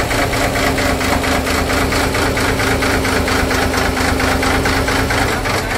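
Cummins N14 inline six-cylinder marine diesel running steadily at idle, just started after repair, with an even rhythmic pulse and a steady hum over it that stops about five seconds in.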